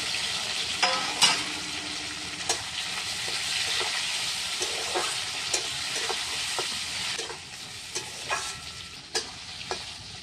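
Chopped onions, tomato and coriander sizzling in hot oil in a metal karai, stirred with a metal spatula that scrapes and clinks against the pan. The sizzle eases off about seven seconds in.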